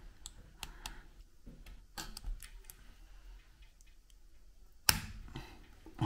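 Small plastic clicks and ticks as the new release button is worked onto the Range Rover Sport L494 gear knob's plastic switch housing, with one sharp, louder click about five seconds in.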